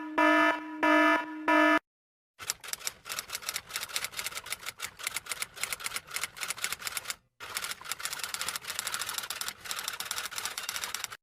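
Four short pitched beeping tones, then a dense, irregular run of rapid typing clicks like keys on a typewriter, with one short pause partway through.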